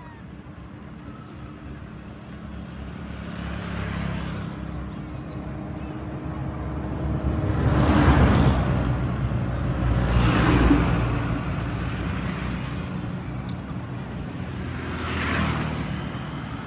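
Cars passing on a road one after another, each swelling and fading away. There are four passes, the loudest two a couple of seconds apart in the middle.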